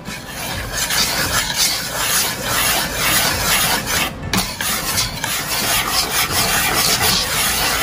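Wire whisk stirring dry flour mix in a plastic mixing bowl: a steady scraping, rasping swish of quick repeated strokes.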